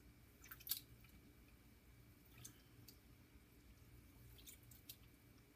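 Faint water sloshing and squelching as a hand presses raw wool fleece down in a bucket of cool rinse water, with a few soft splashes, the clearest about three-quarters of a second in.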